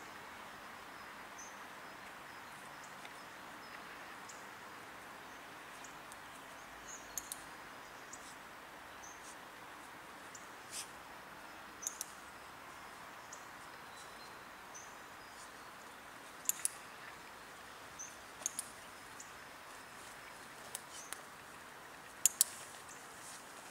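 Quiet outdoor ambience: a steady hiss of distant background noise, with small birds chirping now and then and a few sharp clicks, some in quick pairs, the loudest near the end.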